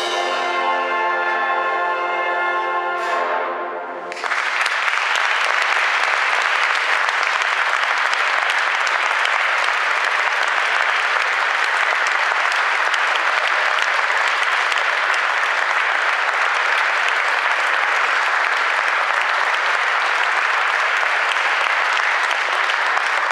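A concert band's brass and wind instruments hold a final chord that cuts off about four seconds in. Then the audience applauds steadily.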